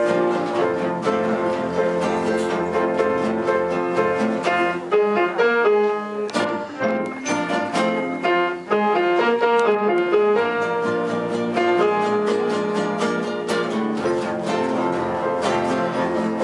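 Ensemble of acoustic guitars, cello and double bass playing an upbeat tune, with plucked guitar chords and bass over bowed cello lines; about five seconds in the texture shifts to a run of short detached notes.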